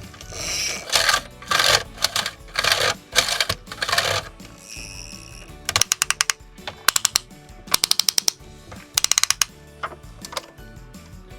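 Small mechanical clicking and ratcheting from the moving parts of a diecast model truck: several short scraping strokes, then from about six seconds in, fast runs of sharp clicks in quick bursts.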